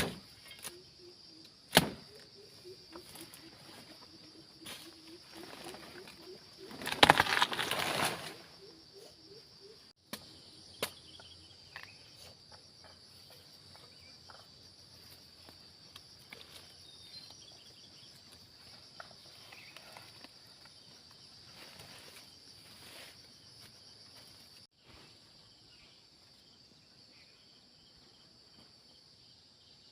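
Insects droning steadily in the vegetation, with scattered sharp knocks and a loud rustling crash about seven seconds in; the drone stops abruptly near the end.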